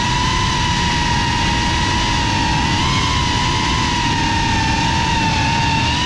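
Geprc FPV quadcopter's brushless motors whining at a high, steady pitch that wavers slightly with the throttle, over a rough rush of propeller and air noise.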